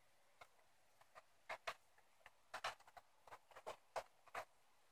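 Small sharp ticks at uneven intervals, about three a second, coming thicker in the second half.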